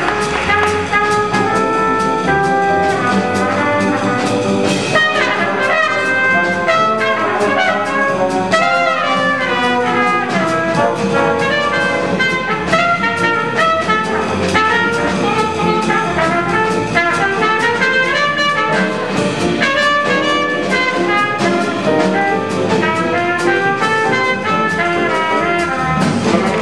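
Jazz big band playing, with a trumpet soloing in quick runs of notes over the band's brass and rhythm section.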